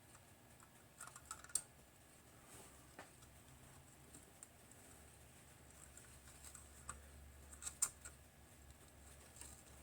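Faint, scattered small clicks and taps as the HP 3476A multimeter's display pins are pushed into their socket and worked in and out, spreading DeoxIT over corroded contacts. The loudest clicks come just after a second in and again near eight seconds in.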